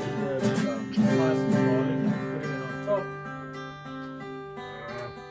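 Background music of a strummed acoustic guitar, its chords ringing on and fading away.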